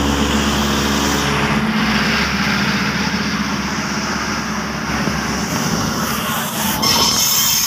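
Two Thai diesel railcar trains passing each other at close quarters: a steady rumble of diesel engines and steel wheels on the rails, heard from an open train doorway. Near the end a high-pitched squeal sets in.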